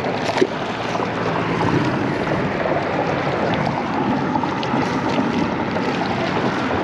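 Steady wind noise on the microphone over the wash of water, with a single sharp knock about half a second in.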